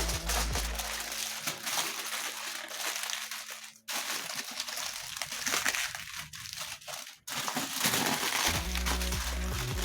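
Aluminium foil crinkling and crackling as it is folded and pressed around a whole stuffed chicken, with a couple of abrupt cuts; background music comes in near the end.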